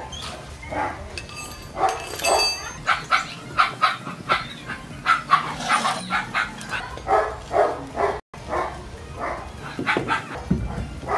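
A dog barking over and over, about two or three barks a second with short pauses.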